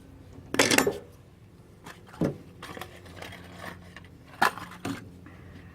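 Hand tools and a spring hose clip working on a rubber fuel hose: a few sharp metallic clicks and clinks, the loudest about half a second in, over a steady low hum.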